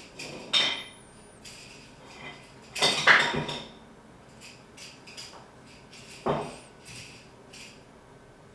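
A dog playing with a toy on a wooden floor: three loud clattering knocks as the toy is knocked and dropped, with light ticks and taps between them.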